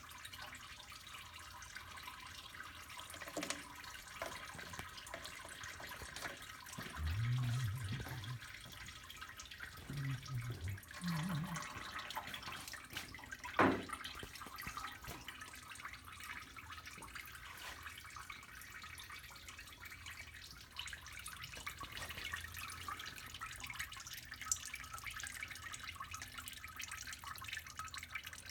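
Oil trickling and dripping steadily from a disconnected line, with one sharp knock about halfway through.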